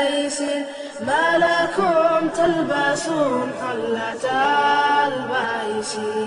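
Unaccompanied vocal chanting: a melodic line sung in phrases with long held, wavering notes, with short breaks about a second in and a little after four seconds in.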